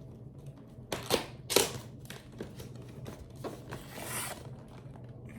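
Cardboard keyboard box being opened and handled: a few sharp knocks and clatters about a second in, then a brief papery scrape about four seconds in.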